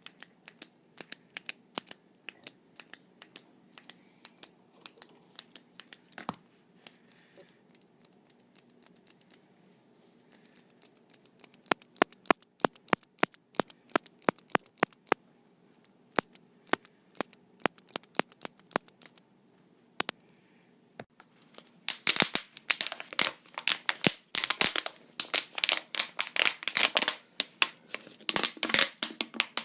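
Dry clicks and crackles of something being handled in a small room: scattered single clicks at first, then a dense, louder run of crackling about two-thirds of the way in.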